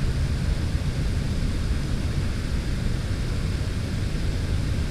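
Steady low rumble with a fainter hiss over it, with no distinct event.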